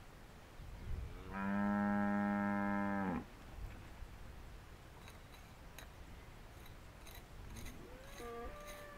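A cow mooing once, about a second and a half in: one steady low call of nearly two seconds that drops in pitch as it ends. Near the end a fainter call rises and falls, with a few faint clicks before it.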